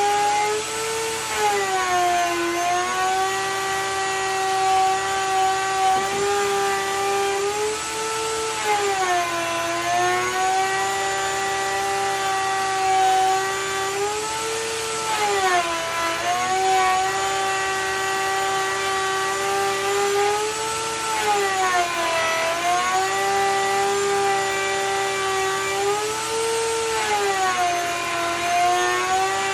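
A high-speed electric power tool running continuously, its motor pitch dipping briefly about every six seconds as it takes a cut and then coming back up to speed.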